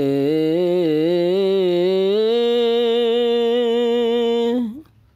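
A single voice singing a long wordless, chant-like note. It wavers in pitch at first, then holds steady from about two seconds in, and ends with a short upward slide near the end.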